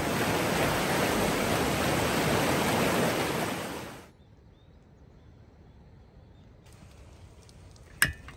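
River water rushing loudly over rocks and rapids, which cuts off abruptly about four seconds in. Then a low, quiet background, and a single sharp click near the end.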